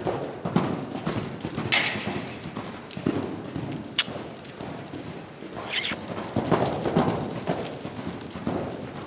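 Hoofbeats of a Saddlebred horse cantering loose on soft dirt arena footing, in a steady rhythm. A few sharper noises sound over them, the loudest a little past the middle.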